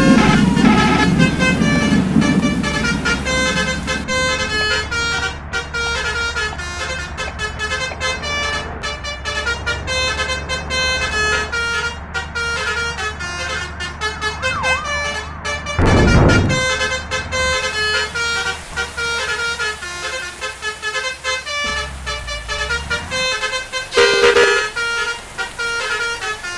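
A bus's basuri musical horn playing a tune of stepped notes over the low running of the bus engine. A louder low rumble comes briefly about sixteen seconds in.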